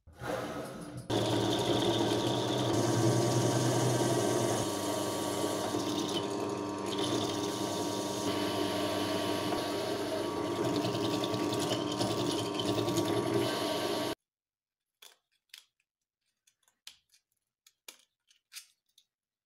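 Benchtop drill press running steadily, then cutting off abruptly about 14 seconds in, followed by a few light clicks and taps.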